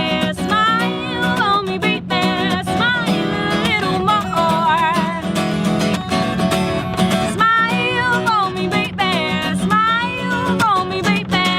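A woman singing with a wavering, held voice over her own acoustic guitar accompaniment.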